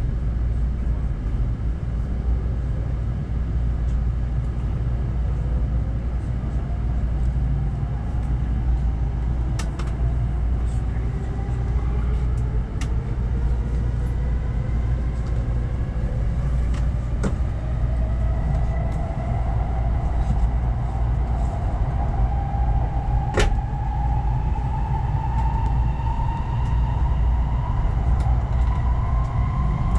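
N700S Shinkansen train heard from inside the carriage as it pulls away from the station and accelerates: the traction motors' whine rises slowly and steadily in pitch over a constant low rumble. A few sharp clicks come through along the way.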